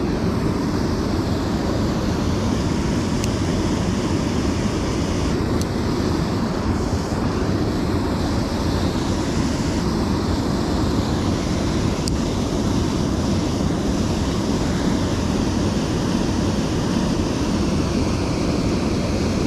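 Steady rush of a small waterfall and fast-flowing creek water.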